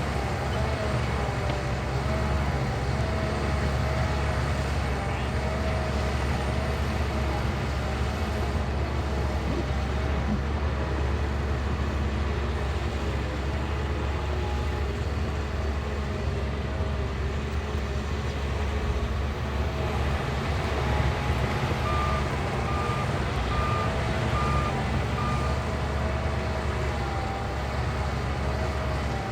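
Heavy diesel engine of a Shantui crawler bulldozer running steadily under load, with a short run of evenly spaced reversing-alarm beeps about three quarters of the way through.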